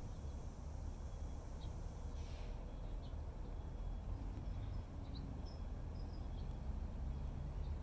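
Outdoor background: a steady low rumble with scattered faint, short, high bird chirps.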